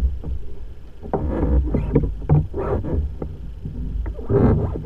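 Small waves slapping and splashing against the hull of a fishing kayak, in a series of irregular splashes over a low rumble.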